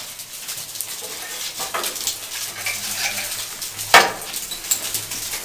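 Split logs and slab wood being tossed into the firebox of a large wood-fired boiler during its first lighting: scattered knocks and clatters of wood on wood and steel, the loudest about four seconds in, with crackling from the burning kindling.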